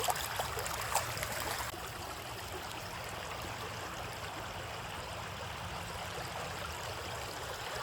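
Shallow creek water running over rock ledges, a steady trickling rush. There are a few faint splashes or knocks in the first two seconds.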